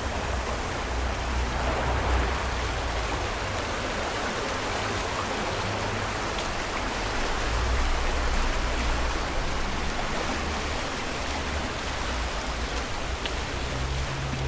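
Floodwater in a swollen creek rushing hard, a steady full roar of water with a low rumble coming and going underneath.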